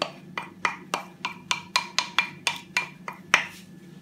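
A wooden spoon knocking against a glazed ceramic bowl, about a dozen sharp taps at roughly three a second, each with a short ringing tone, as chopped meat is scraped out of it; the last tap, near the end, is the loudest.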